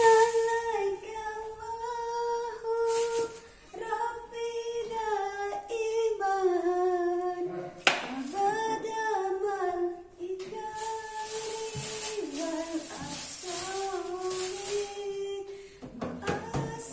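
A woman singing a slow melody, holding long notes that bend and waver, with a short break every second or two.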